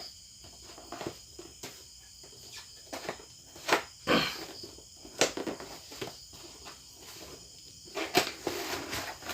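Packaging opened by hand: irregular rustling, crinkling and clicking, with a few louder sharp crackles about midway and near the end.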